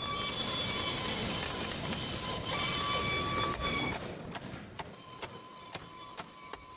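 A steady whirring machine noise with several steady high tones, dropping about four seconds in to a softer hum with one tone and scattered clicks.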